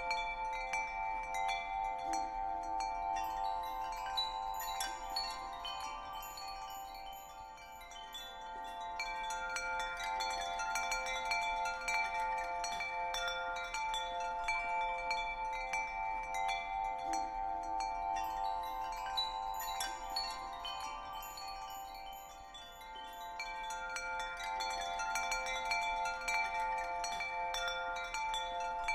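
Chimes ringing continuously as a soothing background track, many overlapping sustained tones. It dips softly twice, about fifteen seconds apart, in a looping pattern.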